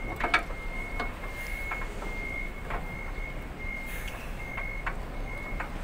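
A vehicle's reversing alarm beeping over and over in one steady high tone, with a few light clicks and knocks of hands and tools on the truck's radiator.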